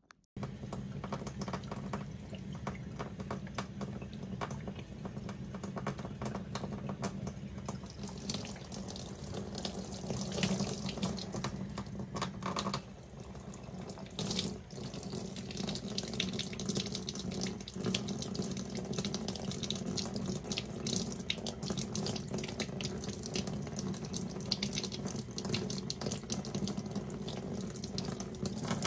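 Tap water running from a faucet into a utility sink, splashing over cupped hands in a steady spatter, with a brief drop in the flow sound about halfway through.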